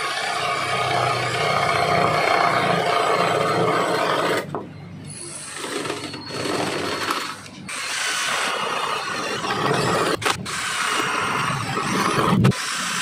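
Mailtank 32V cordless brushed-motor drill running under load, a 25 mm spade bit boring through a wooden board. The drill eases off briefly a few times, and there is a loud knock near the end.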